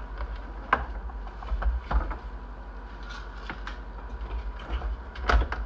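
Plastic housing parts of a Keurig coffee maker being handled and fitted together: scattered clicks and knocks, the loudest about five seconds in, over a low steady rumble.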